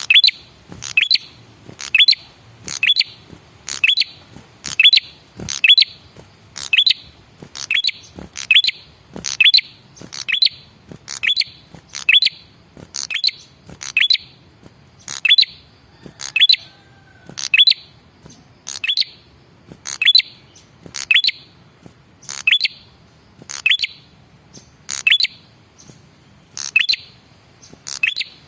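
Male prenjak kepala merah calling: one sharp, high chirp repeated about once a second in an even, unbroken series.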